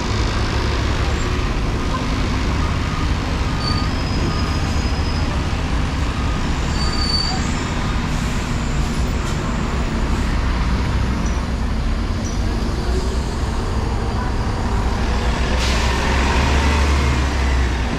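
City bus engine running close by as the bus pulls past, over steady street traffic; the rumble gets louder near the end, with a short sharp hiss.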